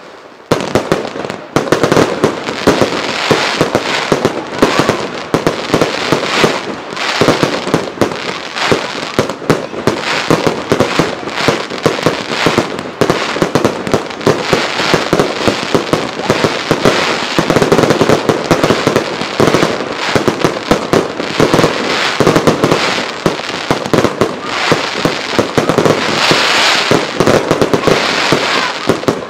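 Finale barrage of aerial firework shells exploding, with many bangs in quick succession overlapping into a continuous din. It starts after a short lull about half a second in.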